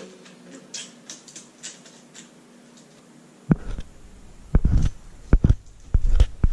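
Small camera accessories and packaging being handled by hand: faint light rustling and ticking, then about halfway through a run of loud, dull thumps, six or so in three seconds.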